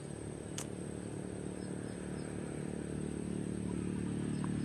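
A distant engine hums at a steady pitch, growing gradually louder.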